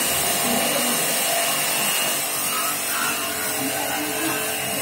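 Jet pump pressure washer spraying water, a loud steady hiss of the high-pressure jet with a faint motor hum under it.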